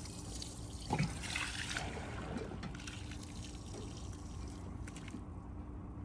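Dirty rinse water trickling and dripping from freshly rinsed, hanging car carpet and insulation mats. There is a brief low sound about a second in, and the trickle thins out after about two seconds.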